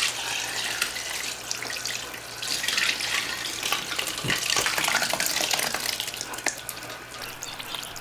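Hot rendered lard pouring in a stream from a cast-iron Dutch oven through a cheesecloth-lined colander into a stainless steel bowl, a steady splashing trickle. It gets louder in the middle as the cooked fat particles slide out of the pot after the liquid.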